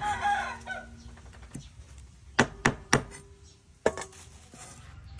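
Several sharp knocks on a hard surface, spaced irregularly, three of them close together in the middle, with a brief pitched call or voice in the first second.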